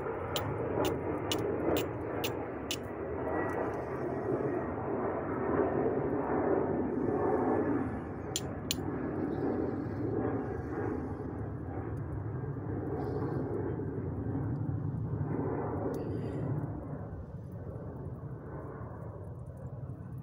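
Flint and steel being struck to throw sparks onto char cloth, testing whether it catches: seven sharp scraping strikes at about two a second at first, two more about eight seconds in and single strikes later on. A steady low rushing noise runs underneath.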